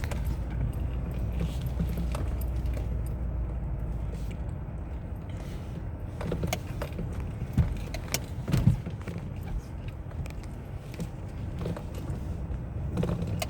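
2005 Citroën C5 steering rack knocking: irregular clunks over a steady low vehicle rumble, coming in a cluster from about six seconds in, the loudest around eight and a half seconds, with a few more near the end. The knock is the sign of a worn steering rack.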